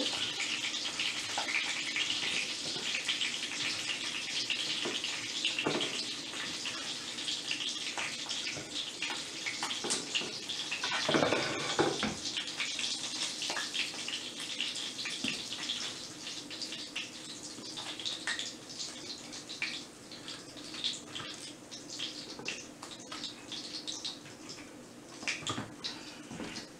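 Breaded mozzarella sticks frying in hot oil in a skillet: a steady sizzle dotted with small crackles and pops. It swells into a louder rush about eleven seconds in, then thins and fades toward the end.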